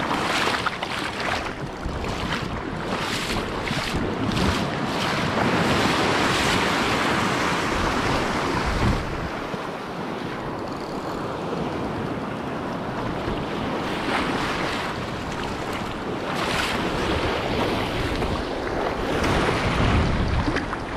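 Small surf waves breaking and washing through shallow water, with wind buffeting the microphone and a series of short splashes, several close together in the first few seconds and a few more later on.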